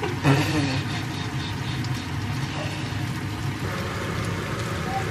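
Churro dough deep-frying in hot oil in a cast-iron skillet: a steady sizzle and bubbling. There is a short vocal sound right at the start.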